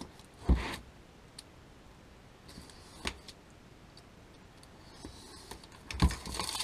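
Utility knife cutting the clear plastic shrink-wrap off a cardboard box: a thump about half a second in, faint scrapes and a click, then a run of crackles and knocks near the end as the wrap comes away and the box is handled.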